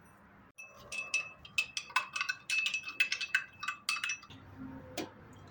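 A quick run of light clinks of glass or china, each ringing briefly at the same pitch, for about three seconds, followed a little later by a single sharp knock.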